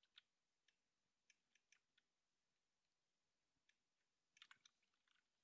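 Near silence, with a scattering of faint, short clicks from a computer mouse being used.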